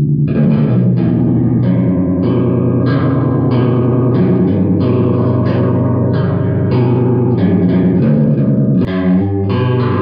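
Electric guitar strumming chords in a steady rhythm, about one every half second or so, played through a DIY Small Clone-style chorus pedal and amplified through a 4x12 guitar cabinet. There is a short break in the playing just before the end.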